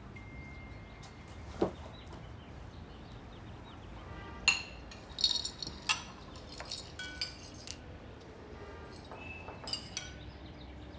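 Glass and crockery clinking: a glass jar and ceramic bowls knocked and set down at a breakfast table, several sharp ringing clinks over a few seconds in the middle of the stretch.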